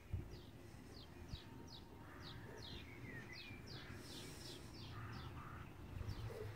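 A small bird singing: a quick run of short, falling chirps, about two to three a second, with one lower swooping note in the middle of the run.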